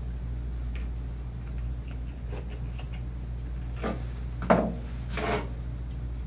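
Scattered light clicks and taps of metal grooming tools being handled, over a steady low hum, with a louder knock about four and a half seconds in.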